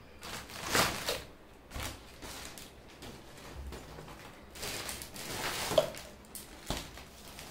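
Foil balloons crinkling and rustling as they are handled, in several short bursts, with a sharp tap about six seconds in.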